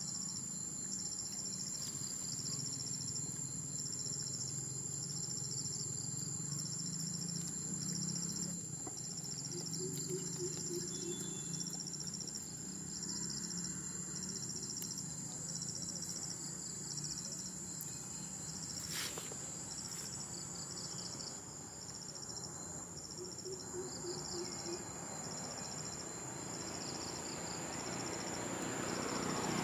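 Insects chirping outdoors: crickets giving short chirps in regular groups about once a second over a steady high-pitched insect whine, with a low hum underneath. A rising rush of noise starts near the end.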